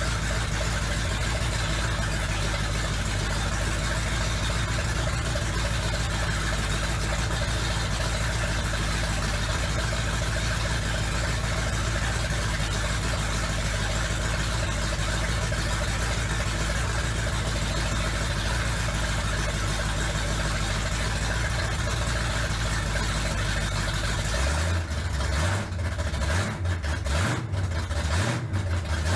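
Big-block V8 of a 1965 Chevrolet C10 running at a steady idle. About 24 seconds in, the sound changes to an uneven, choppier low rumble.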